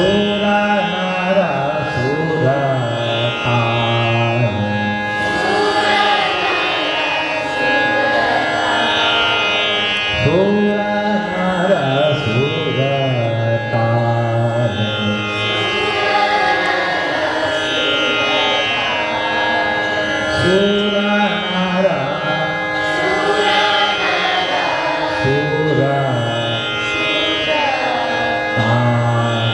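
A male dhrupad vocalist singing long, slowly gliding melodic phrases over a steady tanpura drone.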